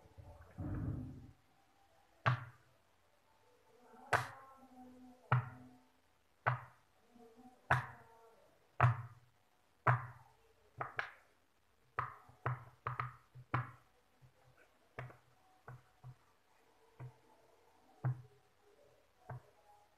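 Silicone pop-it fidget toy, its bubbles pressed in one at a time by fingertips, each giving a sharp pop, about one a second, with a quicker run of pops around the middle. A dull thump about a second in.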